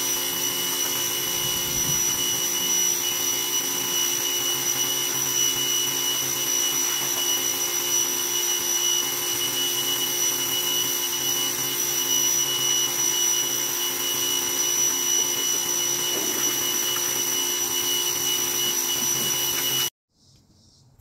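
Greenworks electric pressure washer running steadily with a high whine, its water jet hissing against the pickup's wheel and lower side. The sound stops suddenly near the end.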